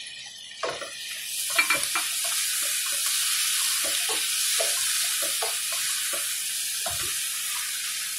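Chopped tomatoes sizzling in oil in a frying pan with onions and pork, the sizzle growing louder about a second in, while a spatula stirs them, with short scrapes and knocks against the pan.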